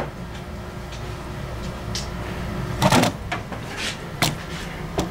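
A few short knocks and clatters of handling, the loudest about three seconds in, over a steady low hum.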